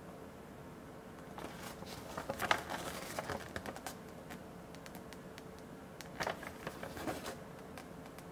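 A folded paper instruction sheet rustling and crinkling as hands shift and slide it, in two bouts of crackly handling noise, the first the louder.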